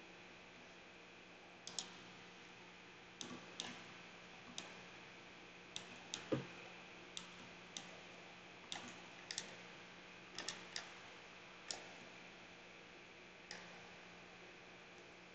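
Computer mouse clicking, about twenty irregular single and double clicks, with one louder click and thump about six seconds in.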